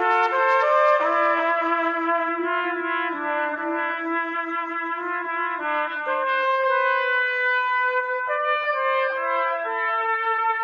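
A small ensemble of trumpets playing in harmony: held chords of several parts that shift every second or so.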